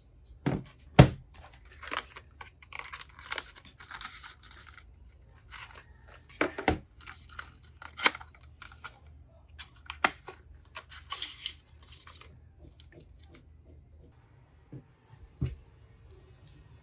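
Plastic protective film and wrapping being peeled and crinkled off a folding phone, in irregular tearing rustles, broken by sharp taps and clicks of handling; the loudest tap comes about a second in.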